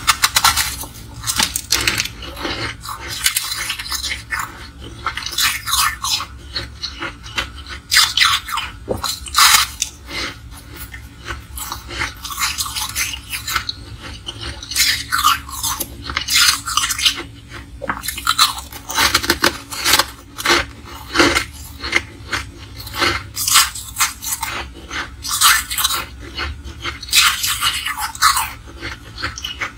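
Frosty ice blocks being bitten and chewed, crunching and crackling sharply close to the microphone. The crunches come in quick clusters with short pauses between bites.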